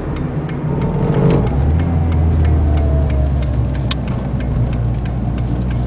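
Ford ZX2's four-cylinder engine running while the car rolls slowly, heard from inside the cabin, with faint regular ticking over the engine's steady drone. With the defrost on, the AC compressor raises the idle enough to pull the car along without the throttle, which the owner takes for a bad compressor.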